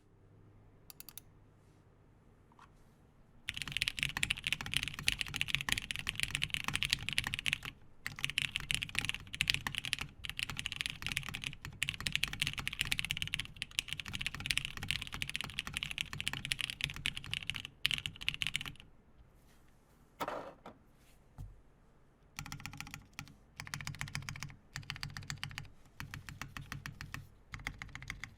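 Lin x VKG Whale mechanical keyboard being typed on, with lubed Cherry MX Black Ultraglide linear switches on a half polycarbonate plate and CRP R4 keycaps. A few single key presses come first. About three and a half seconds in, fast continuous typing starts and runs to about 19 s. After a pause with one brief, lower sound, typing resumes in short bursts.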